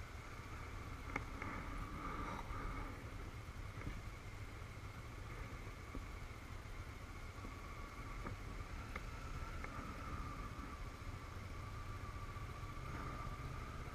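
Honda CBF500's parallel-twin engine running steadily at low road speed, heard through a camera mounted on the bike, with one sharp click about a second in.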